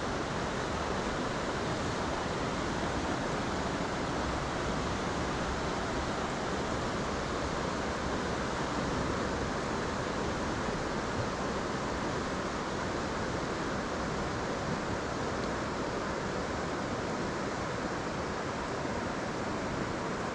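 Stream water rushing steadily over rocks in a shallow riffle, an unbroken hiss of flowing water.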